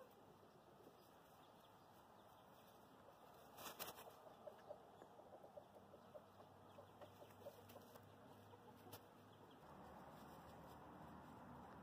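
Near silence with faint rustling and light clicks of baby rabbits moving on dry fallen leaves. There is a short burst of rustle about four seconds in, followed by a few seconds of soft ticking.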